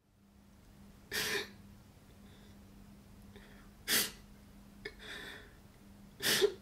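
A man breathing in sharp, forceful bursts, with three loud ones about two and a half seconds apart and a softer one between the last two. A faint steady hum runs underneath.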